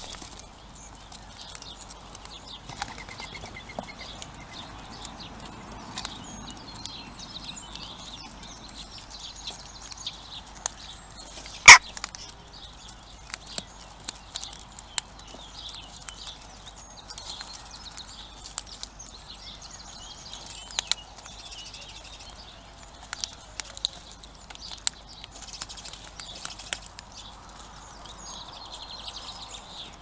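Jackdaws pecking at seed in wooden feeder trays: scattered taps and clicks, with one much louder sharp knock about twelve seconds in. Faint birdsong runs underneath.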